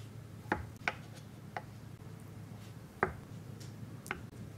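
Kitchen knife slicing through soft sushi-shaped Japanese candies and knocking on a wooden cutting board: about five short, sharp taps at uneven spacing, the loudest about three seconds in.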